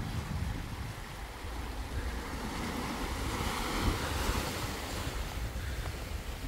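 Small sea waves washing over rocks at the water's edge, the wash swelling and fading about halfway through, with wind buffeting the microphone as a low rumble.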